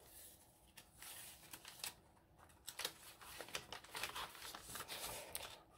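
Faint rustling and light taps of paper pages being turned and handled in a handmade junk journal, with scattered small clicks.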